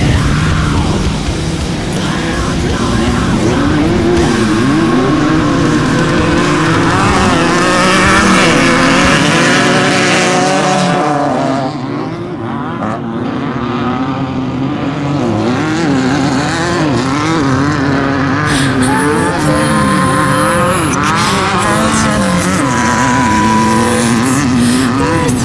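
Off-road desert race vehicles' engines running hard, their pitch rising and falling again and again with the throttle, with music underneath. The sound dips briefly about halfway through.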